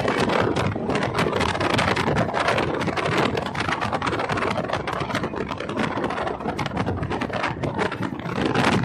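Loud vehicle noise: a dense, steady clatter of rattles and knocks with no horn tones.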